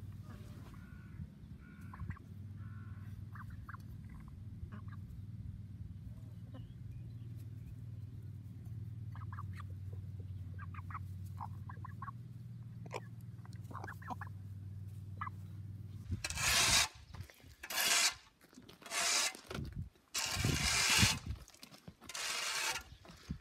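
Hens clucking softly now and then over a steady low hum. About two-thirds of the way through this gives way to a run of five loud, rough bursts of noise, each under about a second long.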